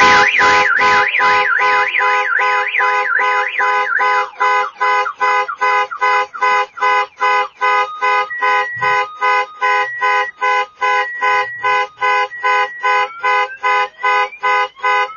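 Aftermarket car alarm siren on a Ram TRX pickup, set off and cycling through its tones: a fast up-and-down warble for the first few seconds, then choppy pulsing tones, then rising sweeps near the end.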